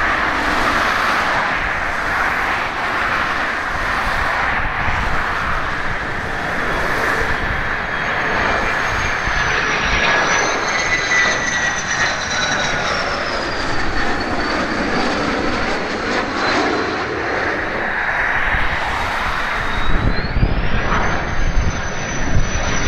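F-16 fighter's single turbofan engine running on the landing approach with gear down: a steady jet rumble with a thin high whine that slides down about ten seconds in and climbs sharply again near the end.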